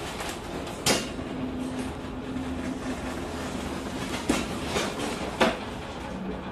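Steady rumble and hum of a ship labouring in heavy seas, with sharp knocks and bangs from the ship's fittings: one about a second in and three in quick succession near the end.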